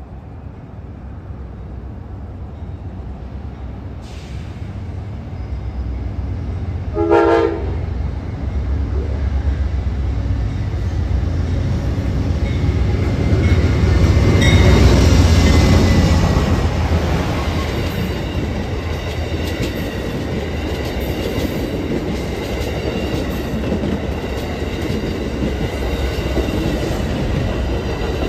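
Amtrak passenger train led by a GE P42DC Genesis diesel locomotive approaching and passing: one short horn blast about a quarter of the way in, then the locomotives' low engine rumble building to its loudest around the middle as they go by. After that comes the steady rumble and wheel clatter of the passenger cars rolling past.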